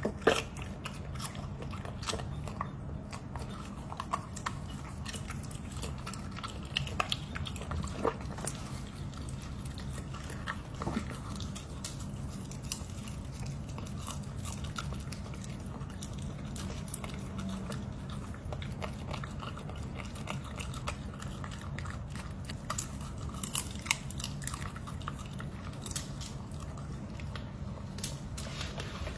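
Dog chewing and crunching vegetables, with irregular wet clicks and crunches of its teeth and mouth.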